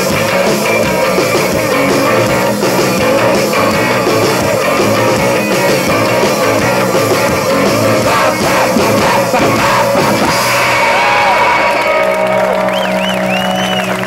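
Live rock band playing electric guitars, bass, drums and keyboards in an instrumental stretch, with some voices over it, picked up by a camcorder microphone among the audience. Near the end, held high notes waver up and down.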